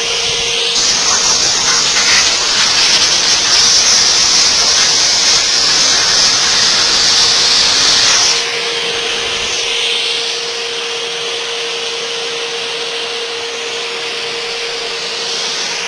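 A steady, loud hiss of compressed air rises about a second in and drops about eight seconds in. Under it runs the steady hum of a CNC drilling and routing machine for storefront extrusions.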